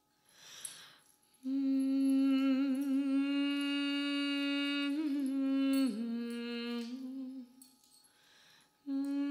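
A voice humming one long held note that wavers in places and dips in pitch after about five seconds, then fades. A short breathy hiss comes before it and again just before a new note near the end.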